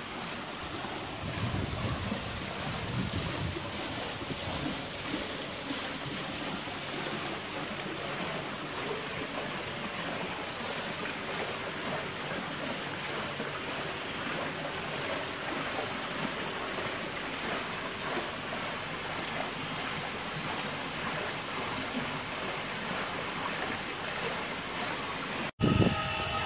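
Steady outdoor hiss with wind buffeting the camera microphone, gusting in low rumbles in the first few seconds. The sound cuts out for an instant near the end.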